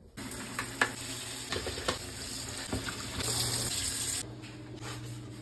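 Kitchen faucet running into a stainless steel sink, with scattered knocks and clinks of something being washed under the stream. The water sound drops away about four seconds in.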